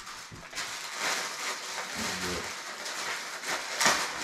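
Rustling of packaging being handled as the monitor box is unpacked: an uneven hiss with a sharper rustle just before the end.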